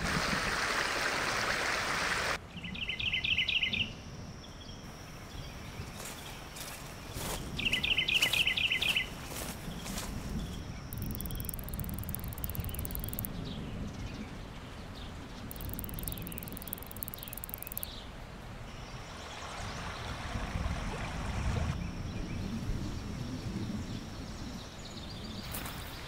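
Rainforest ambience: a rushing, rain-like noise that cuts off suddenly about two seconds in. It gives way to a quieter low background in which a bird gives two short, rapid trills, about three and eight seconds in.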